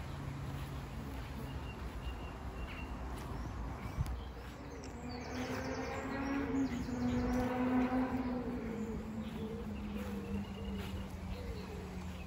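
Birds chirping, with a steady low rumble underneath; about five seconds in a motor hum swells and then drops in pitch as it passes.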